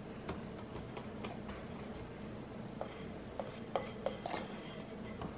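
Wire whisk clinking against a glass mixing bowl while stirring flour into a wet batter: a scatter of light taps and scrapes, busiest about four seconds in.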